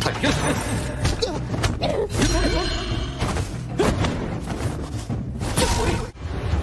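Fight-scene sound effects: a string of sharp hits and thuds, with whooshes, over background music.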